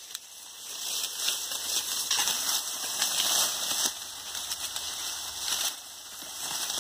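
Dry sugarcane leaves and trash rustling and crackling as they are pushed aside and stepped on, in uneven surges with brief lulls.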